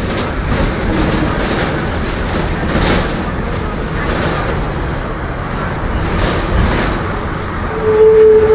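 Marcopolo Torino city bus on a Mercedes-Benz OF-1721 chassis, its six-cylinder diesel at low revs, running with a steady rumble of engine, drivetrain and road noise. Near the end a loud steady whine sets in, the droning differential.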